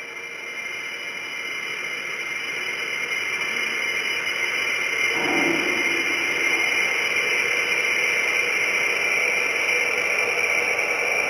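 Experimental noise piece: a dense hissing drone with several steady high tones, swelling louder over the first five seconds and then holding. A short, lower-pitched sound comes in about halfway through.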